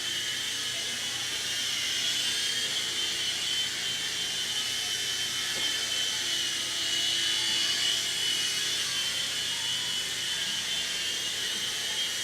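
Propel Stealth Flyer 2 toy RC helicopter in flight: its small electric motors and two sets of plastic rotors give a steady high-pitched whine.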